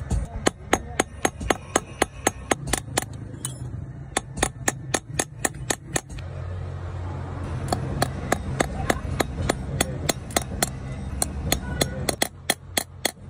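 Small hammer tapping fast on a steel block, peening the pins that fix a metal bolster onto a knife's tang. The sharp metallic taps come about four a second, with a pause of a second or so near the middle.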